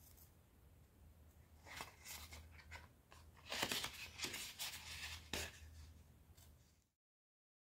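Scissors snipping through a thin sheet of EVA foam: a run of short, crisp cuts over a faint low hum. The sound cuts off abruptly near the end.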